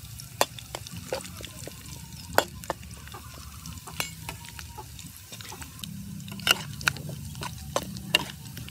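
Vegetables deep-frying in hot oil in a steel wok, sizzling steadily, while a metal spatula stirs them and clanks against the wok in a few sharp knocks, the loudest about two and a half seconds in and again past the middle.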